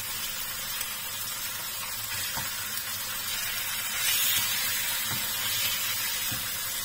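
Salmon belly pieces sizzling as they fry in butter and their own fat in a frying pan, the sizzle swelling a little about four seconds in. A few faint knocks from the spatula as the pieces are turned.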